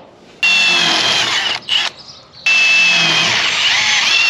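Handheld power drill boring holes through the steel side panel of a New Holland BC5070 baler, in two long runs with a brief blip between them. The motor's whine falls in pitch as it spins down near the end.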